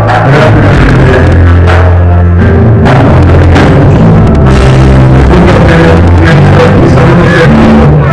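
Live church band playing loud worship music: drum kit with regular beats, electric guitar, and a bass line of held low notes.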